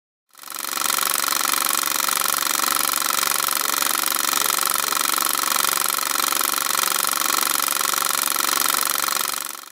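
A steady, fast mechanical rattle with a hiss over it, heavy in the highs. It fades in just after the start and cuts off abruptly at the end.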